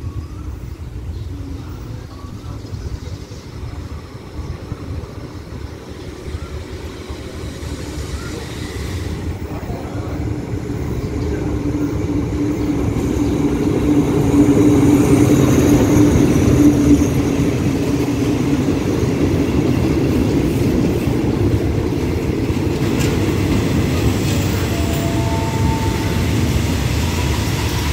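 State Railway of Thailand diesel-electric locomotive no. 4123 arriving, its engine drone growing louder as it draws in and passes about halfway through. Its passenger coaches then rumble slowly past as the train slows to stop at the platform.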